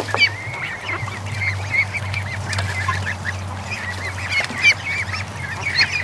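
A pen of young ducklings and goslings peeping, many short high calls overlapping in a continuous chatter, over a steady low hum.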